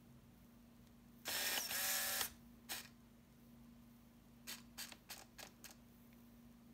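Minolta 7000 AF's shutter firing followed by about a second of whirring from its built-in film-advance motor, then a single click. A little later comes a quick run of six small clicks, and right at the end another shutter release with motor wind begins.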